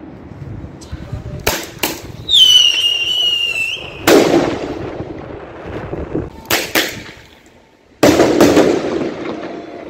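Fireworks and firecrackers going off between buildings. Two sharp cracks come about 1.5 and 2 seconds in, then a whistling firework's whistle falls slightly in pitch and holds for about a second and a half. Louder bangs follow about 4, 6.5 and 8 seconds in, each with a long echoing tail.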